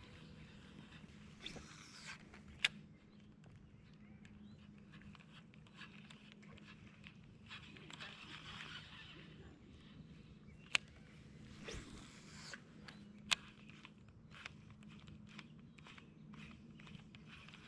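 Handling noise: rustling and swishing with three sharp clicks spread through, over a faint steady low hum.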